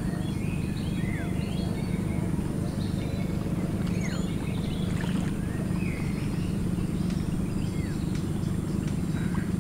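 Wild birds chirping and whistling many times, short calls, some sliding down in pitch, over a steady low rumble that is the loudest sound throughout.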